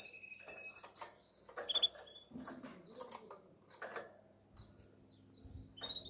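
Caged canary: a held high whistled note that breaks off about a second in, followed by scattered short chirps and clicks.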